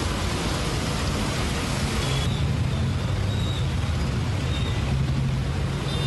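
Heavy rain hissing over road traffic. About two seconds in, the hiss drops away abruptly, leaving mostly the steady low rumble of traffic on a wet road.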